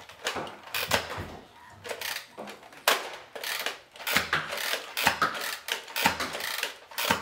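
Nerf Zombie Strike Scravenger lever-action dart blaster being slam-fired: the plastic lever is worked back and forth over and over, each stroke firing a dart. Sharp plastic clacks come about two a second.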